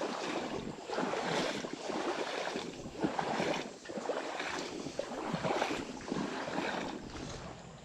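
Legs wading through a shallow creek, water splashing and swishing in a surge roughly once a second with each step.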